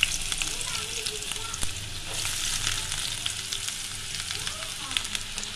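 Chopped onion sizzling as it fries in hot oil and butter in a metal kadai, a steady hiss with a few sharp clicks over it.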